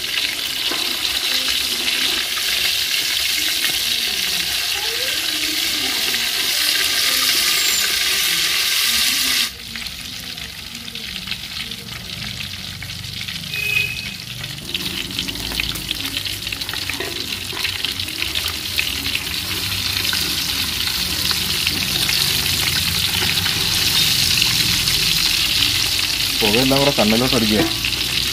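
Masala-coated whole fish sizzling hard as it fries in oil in an aluminium pot over a flame the cook finds too high, with a wooden spatula working in the pot now and then. About a third of the way in the sizzle drops abruptly and carries on quieter.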